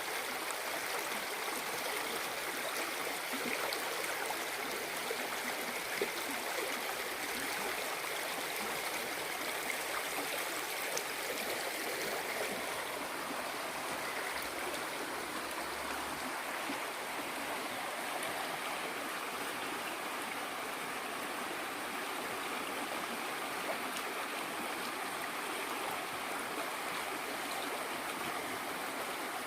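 Waterfall with water rushing and splashing as a steady, even wash of noise.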